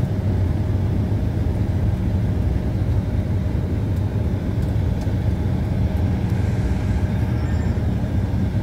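Airliner cabin noise heard from inside the plane: a steady low rumble from the engines at idle and the air system, with a faint thin hum above it.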